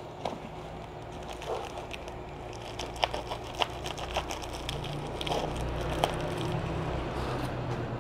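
A bubble-wrapped, tape-covered parcel being handled and turned over, with light crinkling and a few scattered sharp clicks; a low hum underneath grows a little stronger about halfway through.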